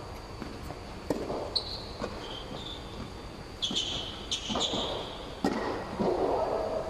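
Tennis rally on an indoor hard court: several sharp pops of rackets striking the ball and the ball bouncing, with short high squeaks of shoes on the court in between.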